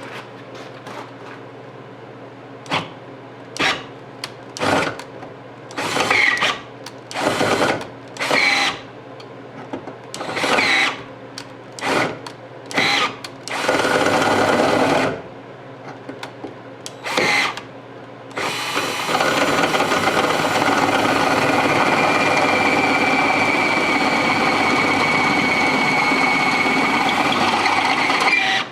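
Electric drill with a 31/64-inch bit boring out the ovaled-out pin hole in a GMC squarebody door hinge to take a brass bushing. It runs in a string of short trigger bursts, then settles into one long continuous run with a steady whine for the last third.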